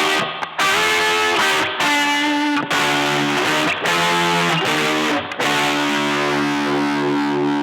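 Distorted electric guitar played through an EarthQuaker Devices Zoar distortion pedal: short chords broken by brief stops, then a chord left ringing from about five and a half seconds in.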